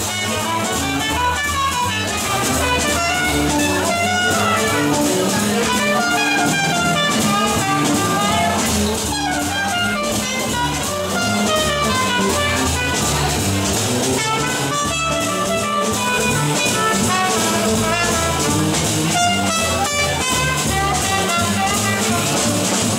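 Live swing band playing an up-tempo jazz number.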